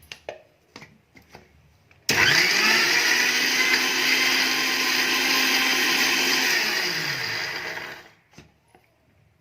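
Kitchen mixer grinder grinding chopped ginger with a little milk in its jar. After a few light clicks, the motor switches on about two seconds in and quickly spins up. It runs steadily for about four seconds, then is switched off and winds down, falling in pitch before it stops.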